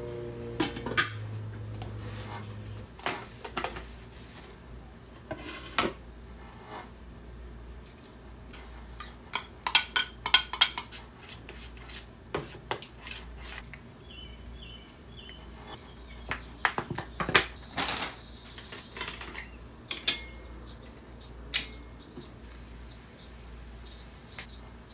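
Kitchen clatter: a steel pot lid handled at the start, then a spoon clinking and scraping against a ceramic mixing bowl as a thick chili-paste marinade is stirred. The clinks come scattered, with quick runs of them about ten seconds in and again about seventeen seconds in.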